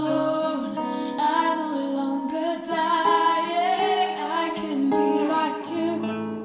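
A song: a woman singing long, wavering held notes over a steady instrumental backing.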